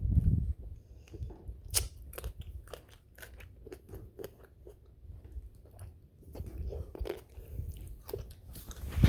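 Irregular small clicks and taps, with a heavier low thump at the start and another near the end.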